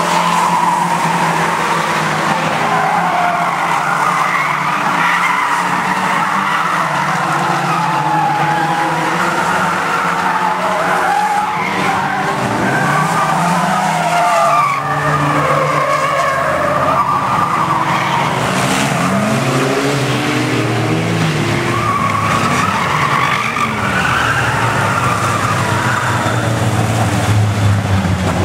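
Several Bangerstox stock cars racing on an oval, engines revving up and down as they pass, with tyres squealing as the cars slide through the bend.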